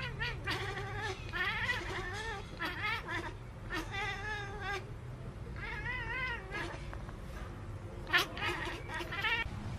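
Domestic tabby cat giving a string of warbling, wavering meows, about seven calls each up to a second long, the loudest near the end.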